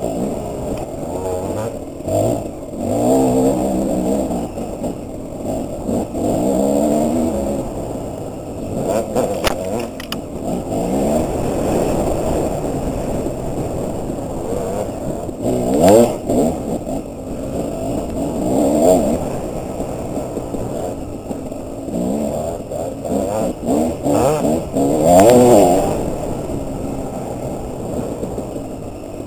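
Dirt bike engine heard from the rider's own bike, revving up and dropping back again and again as the throttle is worked and gears are shifted on a trail. Two sharper rev climbs stand out, one about halfway and one near the end.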